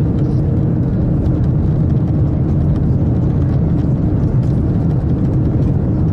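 Steady, loud, low running noise heard inside the cabin of a Japanese superconducting maglev test train travelling at about 500 km/h through a tunnel.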